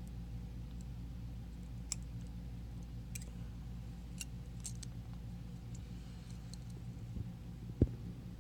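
Light, scattered clicks of the small metal parts of a disassembled Assa Desmo cam lock being handled, over a steady low hum, with one louder knock near the end.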